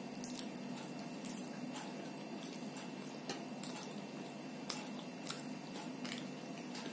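Close-up eating sounds: a person chewing soft food and smacking her lips, with wet squishes as fingers pick small potatoes out of curry. These come as irregular short, sharp clicks over a steady low hum.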